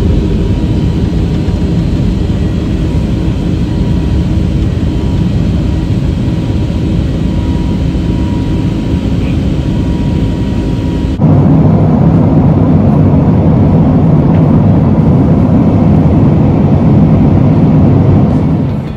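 Boeing 747-8 cabin noise in flight: a steady loud rush of jet engine drone and air past the fuselage. About eleven seconds in it shifts abruptly to a louder, deeper rush.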